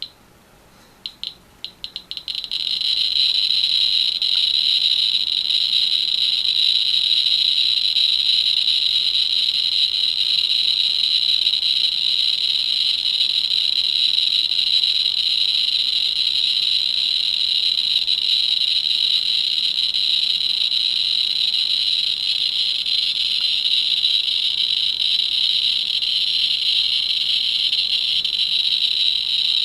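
Geiger counter clicking: a few single clicks, then about two seconds in the clicks speed up into a loud, dense, steady crackle. This is the count rate of a radioactive thoriated (thorium dioxide) lens element held to the counter.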